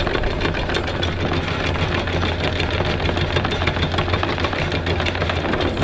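Boat's anchor windlass running on the anchor chain: a steady low motor hum under a rapid clatter of chain links.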